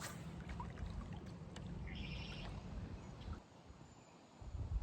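Outdoor ambience by a creek: a steady low rumble of water and wind with a few small knocks, falling away about three and a half seconds in, and a short chattering bird call about two seconds in.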